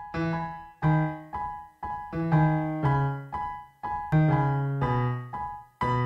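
Background piano music: notes and chords struck about twice a second, each ringing and fading before the next.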